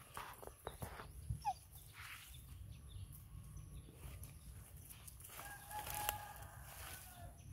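One long animal call, held for about two seconds in the second half and dipping slightly at its end, over soft rustling and steps of animals walking on a leafy dirt path.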